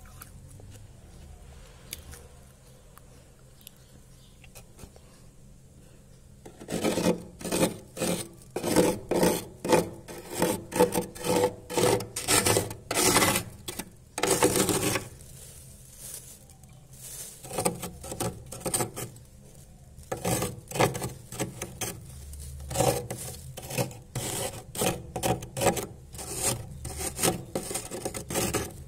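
Frost built up in a freezer being scraped: rapid rasping scrapes about two a second, starting several seconds in, stopping briefly in the middle, then starting again.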